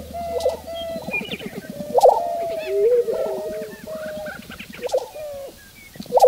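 Male lesser prairie-chickens displaying on a lek: several birds giving overlapping bubbling, cooing calls, each wavering note lasting under a second, with a few sharp clicking notes mixed in.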